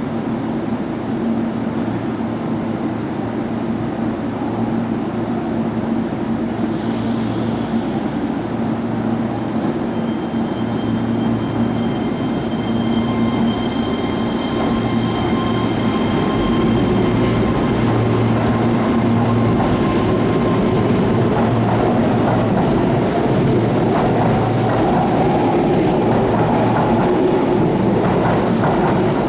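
Keihan 13000-series electric commuter train idling with a steady hum, then pulling away about halfway through. The sound grows louder and its motors give a whine that rises in pitch as the train picks up speed.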